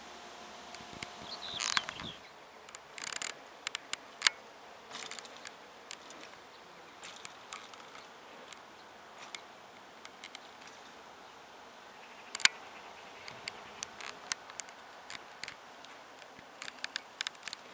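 Scattered sharp clicks and ticks. The loudest come about four seconds in and about twelve seconds in. For the first couple of seconds an insect buzzes faintly and steadily, then fades away, over quiet outdoor background noise.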